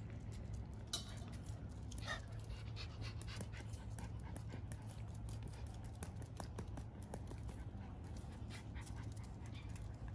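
Miniature Schnauzers panting, with a couple of short high squeaks about one and two seconds in.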